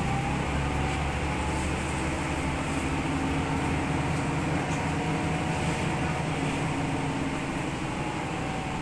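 Mercedes-Benz O405G articulated bus on the move, heard from inside the passenger cabin: its OM 447 hLA diesel engine runs steadily as a low drone with a thin steady whine over it.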